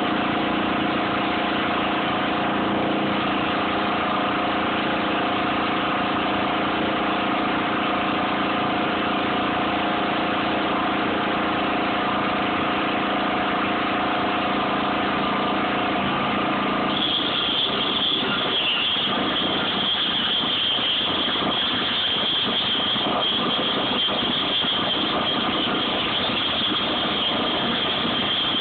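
Machinery running steadily with a pitched drone. About 17 seconds in, the sound changes to a harsher, noisier one with a high steady whine on top.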